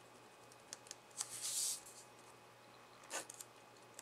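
A sheet of paper being turned and slid across a wooden desk. There are a few light clicks, a hissy rustle lasting about half a second about a second in, and another short rustle near the end.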